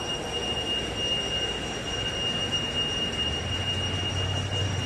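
Steady machinery noise with a constant high-pitched whine over it. A low hum joins about three seconds in.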